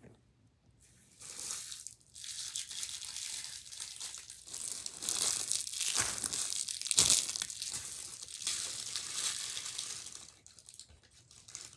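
Plastic candy wrappers and a zip-top plastic bag crinkling and rustling as wrapped candy is handled and packed, starting about a second in and loudest around seven seconds in.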